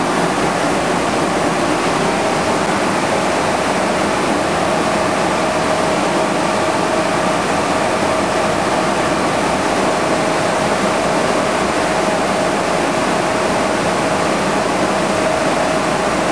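Steady rushing air noise of a ventilation blower, with a steady mid-pitched hum that comes in a few seconds in.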